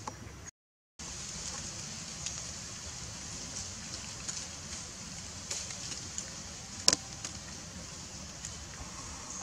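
Outdoor ambience: a steady high hiss with scattered small clicks and crackles, the sharpest about seven seconds in. The sound drops out briefly about half a second in.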